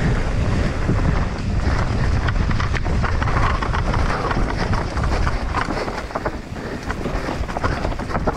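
Wind buffeting the camera microphone while a mountain bike descends a loose dirt trail at speed, with tyre noise and frequent clicks and knocks from stones and the bike rattling over the rough ground. The rumble eases a little about five and a half seconds in.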